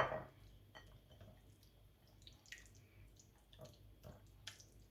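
Faint wet squelches and small clicks of boneless chicken pieces being mixed by hand in a thick egg and corn-flour marinade, with one louder wet slap at the very start.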